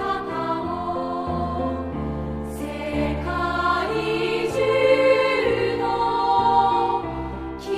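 Background music: a song sung by a choir over an accompaniment of held notes and a steady bass.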